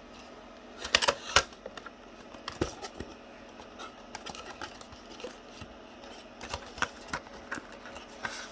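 A cardboard toy box being opened and handled: flaps and tabs pulled and paper instruction sheets shifted, giving a scattered run of small clicks and rustles, with two sharp snaps about a second in.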